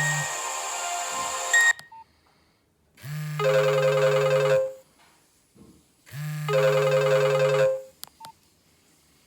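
Nokia 1600 mobile phone playing ringtones through its small speaker: one tune ends, then after a pause a short musical phrase plays twice with a gap between, each time over a steady low hum.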